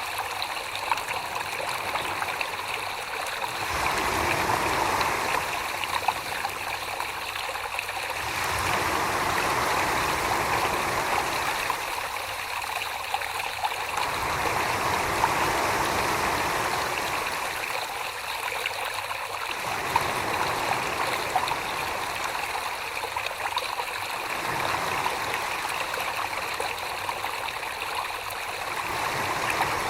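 Wet clay and slurry on a spinning potter's wheel under the potter's hands, a continuous watery swishing that swells and eases every few seconds.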